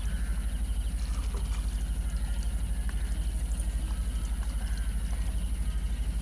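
An engine running steadily at idle, with a fast, even low throb of about a dozen beats a second.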